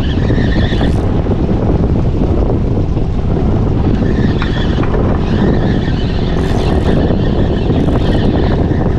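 Strong wind rumbling on the microphone over a boat's motor running under way, a loud, steady, low noise.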